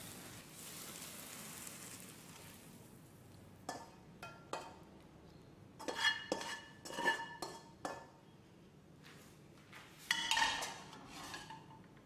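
Stir-fried water morning glory sizzling in a hot non-stick frying pan, the sizzle dying away over the first few seconds. Then a spatula scrapes and knocks against the pan, which gives short ringing clinks, as the vegetables are slid out onto a plate.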